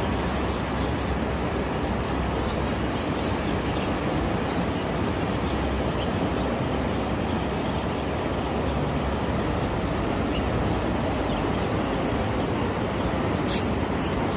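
Wind blowing across the microphone on an exposed hilltop, a steady rushing noise. There is a short click near the end.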